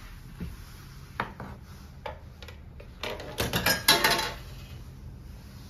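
A few light clicks, then a burst of metallic clattering and rattling about three seconds in, at the coin mechanism of a coin-operated kiddie ride.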